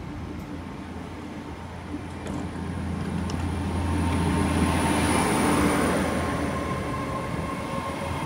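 Great Western Railway Class 800 bi-mode train moving slowly past on its underfloor diesel engines: a steady low engine hum with wheel and running noise. It grows louder from about three seconds in, peaking midway as the coupled unit ends go by, then eases a little.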